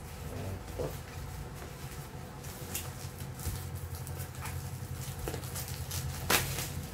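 Bubble wrap and plastic packaging crinkling and scratching as scissors cut and pick at a tightly wrapped parcel, with scattered small crackles and one louder snap near the end.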